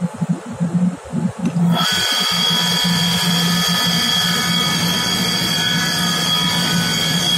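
Small electric circulating-pump motor humming in irregular, throbbing pulses that cut in and out. About two seconds in, it comes up to speed and runs steadily with a hum and a high-pitched whine.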